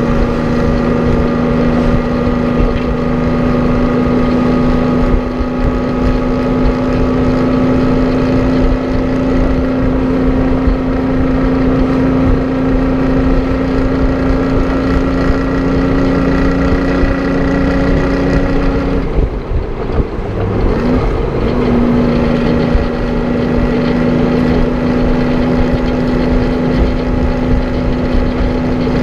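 Detroit Diesel 6-71 two-stroke inline six in a 1950 GMC 970 truck, pulling under load, its note slowly rising. About two-thirds of the way through it drops off for a moment with a quick throttle blip during a gear change, then pulls steadily again. Wind buffets the microphone.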